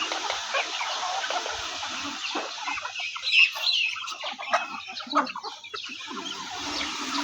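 Chickens clucking and calling, a scatter of short calls with a few louder ones in the middle.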